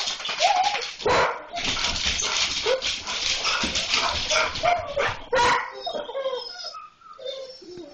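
German shorthaired pointers barking, yipping and whining excitedly at a cat they have spotted, in quick short calls; near the end the barking gives way to quieter whines.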